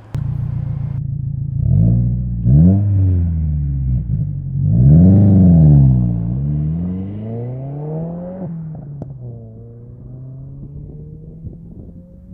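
Subaru WRX turbocharged 2.4-litre flat-four running through a Remark R1 cat-back exhaust with a titanium muffler: two short throttle blips about two and three seconds in, then a longer rev around five seconds that falls back to a steady low drone.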